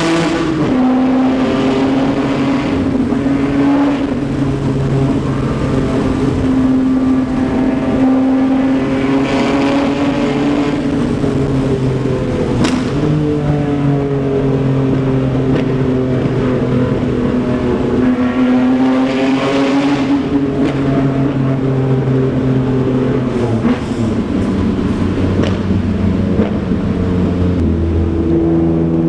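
Nissan Skyline R32 GT-R's straight-piped twin-turbo RB26 straight-six running under way, its pitch climbing steadily and then dropping several times as it changes gear. A single sharp click sounds near the middle.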